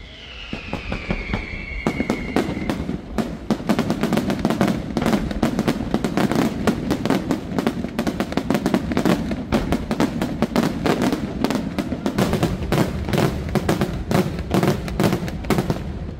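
Aerial fireworks display: a dense, rapid barrage of shell bursts and crackling reports, several a second, thickening after the first couple of seconds. A falling whistle sounds at the start.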